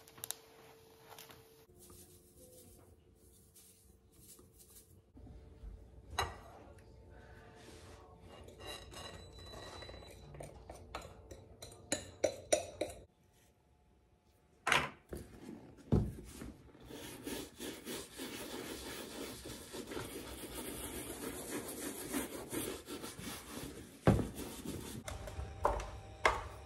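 Shoe brush rubbing polish onto leather shoes: a steady brushing rasp through the second half, with scattered clicks and knocks from kitchen handling before it and a few sharp knocks near the end.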